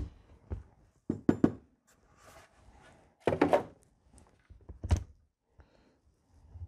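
Several separate knocks and thunks of a chainsaw and its plastic bar cover being handled and set down on a wooden workbench. A cluster comes about a second in, and the loudest thud about five seconds in.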